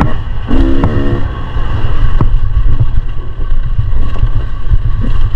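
Beta 300 RR two-stroke enduro motorcycle engine running on the throttle over heavy low rumble, its note swelling briefly about half a second in.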